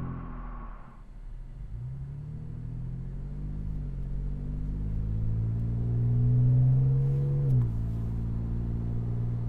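Toyota 4Runner's 4.0-litre V6, breathing through a RedRock cat-back exhaust with a straight-through muffler, heard from inside the cabin while accelerating. At the start the note falls off from the outside tailpipe recording. Then the engine note climbs, drops at an upshift about four seconds in, climbs again and drops at another upshift near the end.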